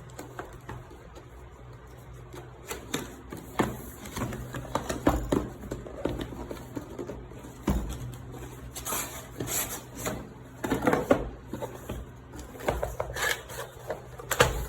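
Cardboard keyboard box being opened and its packaging handled: irregular rustling, scraping and light clicks and knocks, in clusters.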